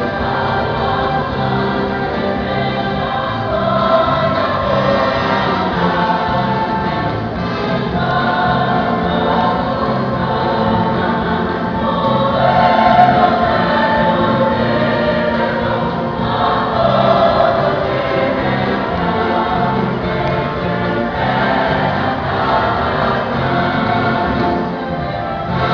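Youth choir singing a gospel song, the voices carrying on without a break over a steady, stepping bass line.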